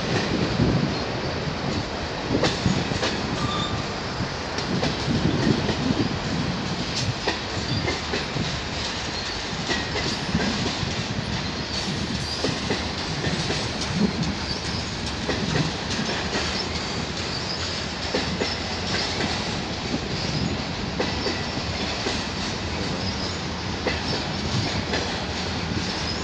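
Freight cars of a CN train rolling steadily past: continuous wheel-on-rail rumble with irregular clicks and clanks as the wheels run over the rail joints.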